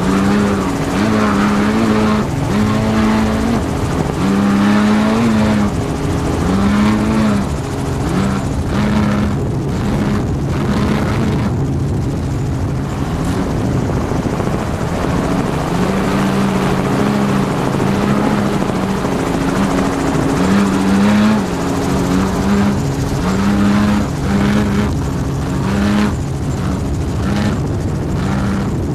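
A helicopter runs steadily throughout. Over it, a desert race truck's engine revs up and down in repeated short swells as it drives over the rough track.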